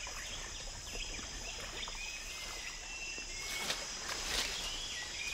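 Steady, high-pitched insect chorus, with a few faint short chirps and two brief soft noisy sounds a little past the middle.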